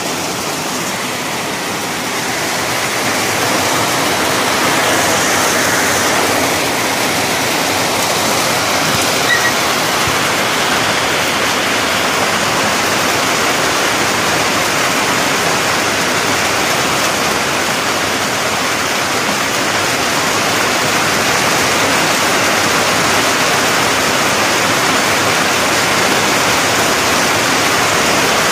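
Heavy storm rain pouring steadily onto tree foliage, a dense even hiss that grows a little louder about three seconds in.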